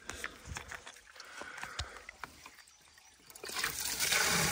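Faint knocks and clicks, then about three and a half seconds in a loud, steady rush of water starts: the drain tap at the bottom of a spring-fed water tank opened to flush out silt.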